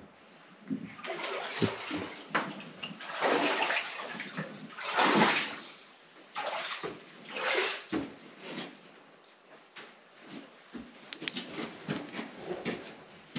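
Someone wading through knee-deep water, with a splash and swish at each stride about every two seconds. The strides are louder in the first half and smaller and softer later.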